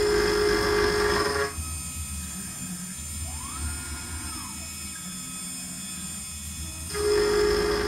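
A 6040 CNC router's spindle and 8 mm three-flute carbide end mill milling a square steel bar: a loud, high-pitched cutting tone for about the first second and a half and again from near the end, with the machine running quieter between. Midway a whine rises in pitch and falls back.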